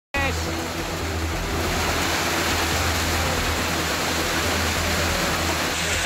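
Torrential rain in strong wind pouring onto the roofs: a dense, steady rushing hiss with a low wind rumble underneath.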